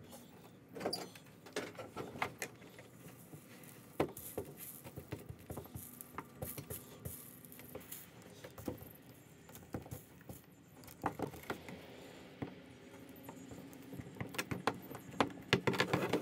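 Light, irregular scraping and ticking as the heated tip of a handheld plastic welder is dragged back and forth over melted plastic filler, smoothing it into the patch. The ticks come thicker near the end.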